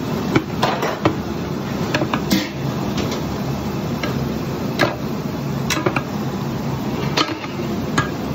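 Irregular knocks and clinks of kitchen utensils against cookware, about eight in all, over a steady low hum.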